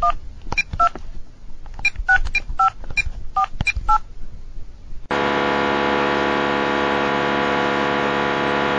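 Telephone touch-tone keypad dialing: about ten short dual-tone beeps over four seconds. About five seconds in, a steady, loud electric buzz sets in abruptly and holds.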